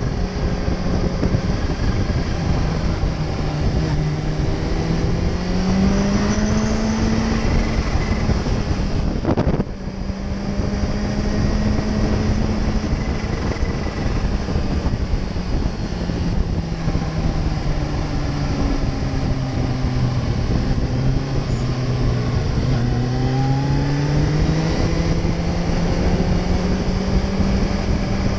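Sport motorcycle engine running under way, with wind noise. The engine note climbs and eases several times as the throttle is opened and closed, with one brief sharp break about nine and a half seconds in.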